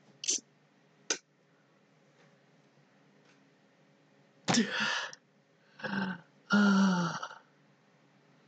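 A man laughing hard: two short sharp gasps near the start, then three loud bursts of laughter in the second half, the last the longest.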